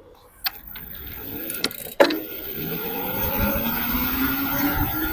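Bafang M620 mid-drive e-bike motor whining under power as the bike gets going, its whine rising in pitch and getting louder, after a few sharp clicks in the first two seconds.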